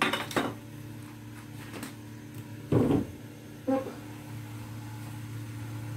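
Kitchen handling sounds: a few short knocks and clinks of spice containers and cookware being handled, the loudest just under three seconds in, over a steady low hum.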